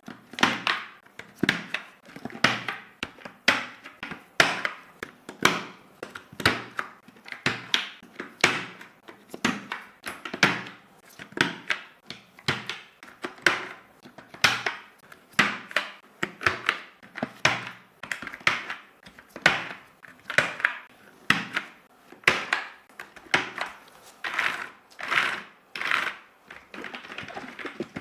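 Fuhlen L411 keyboard clicking and tapping, sharp plastic clicks about once a second, many of them doubled.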